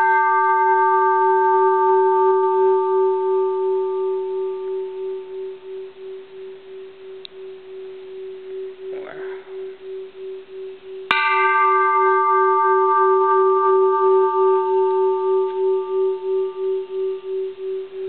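Mid-1800s Japanese bronze Buddhist temple bell ringing after a blow from a wooden mallet. A steady low hum with a regular, slow waver carries brighter overtones that die away over several seconds. It is struck again about eleven seconds in and rings on.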